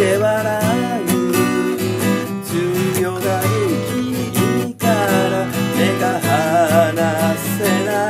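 Acoustic guitar strummed in steady chords while a man sings along, with a momentary break just past halfway.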